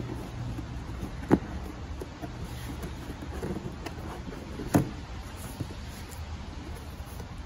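Cardboard box being torn open by hand: rustling and tearing of the lid, with two sharp snaps, one about a second in and a louder one just past the middle. A steady low hum runs underneath.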